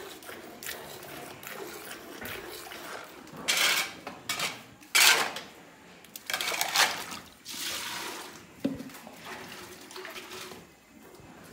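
Metal vessels clinking, with a few short, irregular hissing splashes of liquid into metal; the loudest come between about three and eight seconds in.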